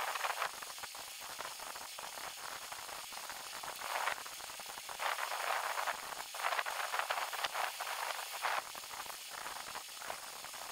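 Electric arc from a homemade small-transformer welding machine, crackling and sizzling in irregular surges as the rod strikes and holds the arc.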